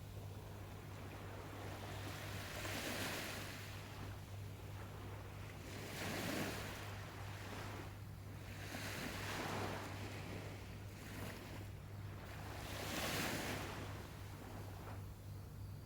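Small waves washing onto a shore, the surf swelling and falling back about every three to four seconds, over a steady low hum.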